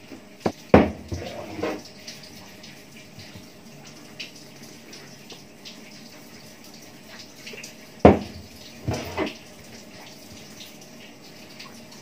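Knocks and scrapes from a plastic bucket being handled while fermenting rice is packed into it: a short burst about a second in and another about eight seconds in.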